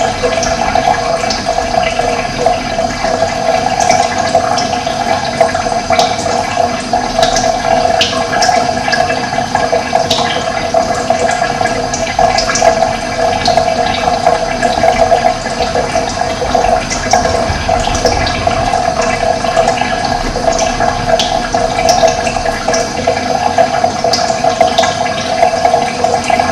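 Running water, a loud, steady rush, with short bird chirps here and there.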